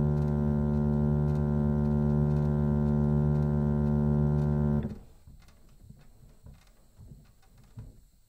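Ostlind & Almquist harmonium holding a steady sustained chord that stops abruptly about five seconds in. After it stops there are only a few faint low thuds.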